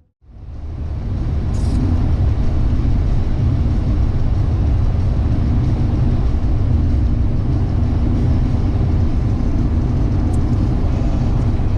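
Steady low rumble of road and engine noise heard inside a moving car's cabin, fading in over the first second or so.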